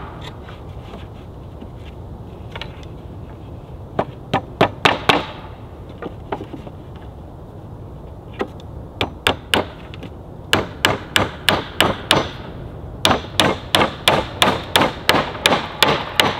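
Claw hammer nailing pallet boards together: a handful of sharp blows, then quick runs of about three strikes a second, the last and longest run near the end.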